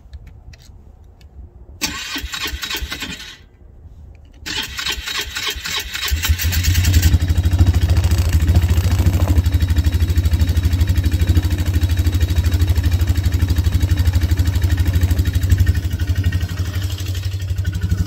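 An engine cranked by its starter twice, catching on the second try about six seconds in and then running steadily at idle.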